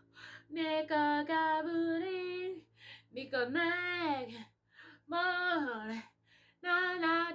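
A three-year-old girl singing unaccompanied, in four short phrases with brief pauses between them.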